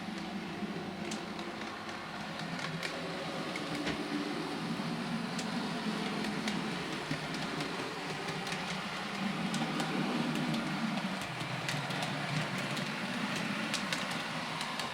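Bachmann Derby Lightweight model railcar running along the layout: a steady motor hum and wheels on the rails, with scattered light clicks. It runs smoothly without hesitation, its motor-bogie wiring freshly redone.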